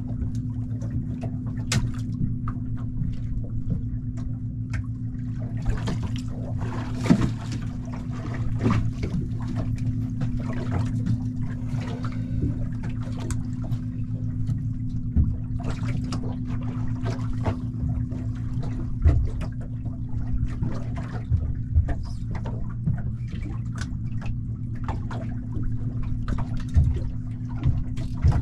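Water lapping and slapping against the hull of a small boat, in many short irregular splashes with a few louder slaps, over a steady low hum.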